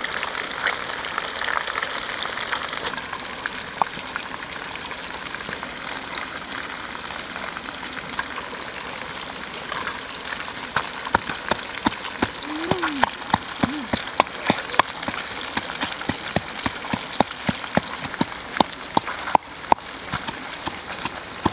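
Whole fish deep-frying in a wok of hot oil: a steady sizzle with many sharp, irregular crackling pops.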